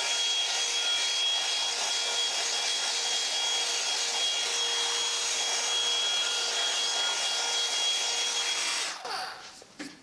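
Revlon One-Step hot-air blow dryer brush running on its high setting, a steady rush of air and motor with a thin high whine, as it is rolled down through a section of hair. It stops about nine seconds in.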